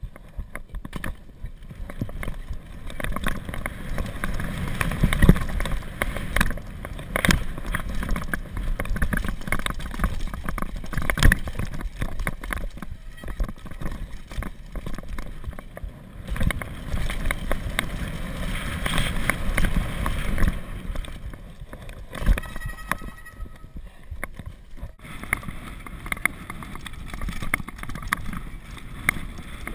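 Downhill mountain bike ridden fast over a rocky, loose-gravel trail: tyres crunching over stones under a steady low rumble, with frequent sharp knocks and rattles from the bike as it hits bumps.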